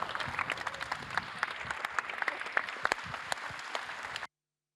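Audience applauding: a dense patter of many hands clapping, which cuts off abruptly about four seconds in to dead silence.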